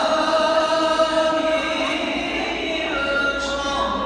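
Background nasheed: layered voices, choir-like, holding long sung notes with no percussion, between lines of the song.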